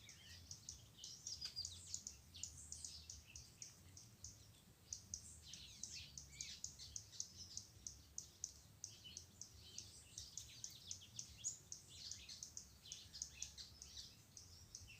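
Many small birds chirping and calling together, a dense, overlapping chatter of short high chirps and quick falling notes, fairly faint.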